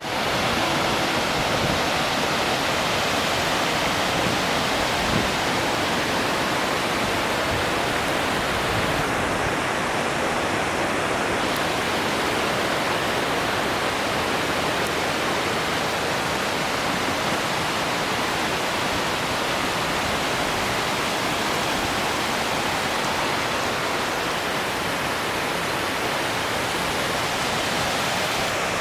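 Waterfall rushing: a steady, loud roar of falling water with no let-up.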